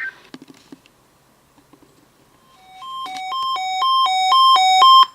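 NOAA weather alert radio sounding its alarm: a hi-lo two-tone beep alternating about twice a second, starting about halfway in and growing steadily louder until it cuts off. It is the receiver's alert for an Emergency Alert System child abduction (Amber Alert) message. A few faint clicks come before it.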